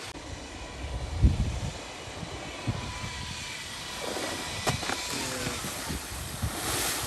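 Strong wind buffeting the microphone in gusts with low thumps, over a faint steady high whine.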